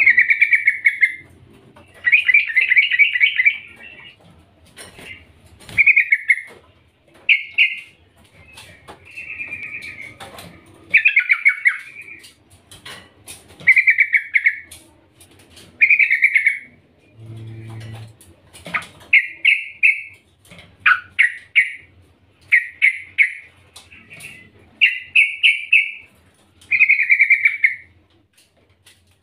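Yellow-vented bulbul calling over and over in short, bubbly chattering phrases about every two seconds, a female's call to attract a male.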